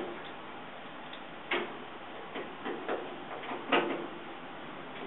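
A few irregular sharp clicks and light metallic taps as the last screw is fitted and driven by hand into the dryer's sheet-metal cabinet.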